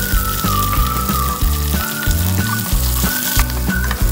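Background instrumental music with a sustained melody, over small onions sizzling in hot oil in a metal pan as they start to sauté.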